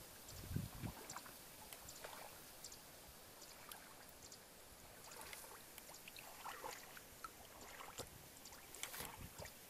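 Faint small splashes and trickles of shallow muddy water, with a few soft low thumps about half a second in.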